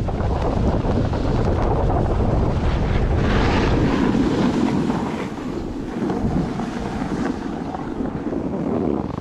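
Wind buffeting an action camera's microphone during a snowboard run, with the hiss of the board sliding over snow. It gets quieter about five seconds in.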